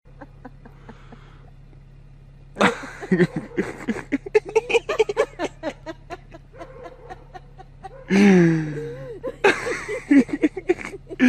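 People laughing in repeated bursts, beginning a couple of seconds in, with a drawn-out exclamation falling in pitch about eight seconds in, over a faint steady hum.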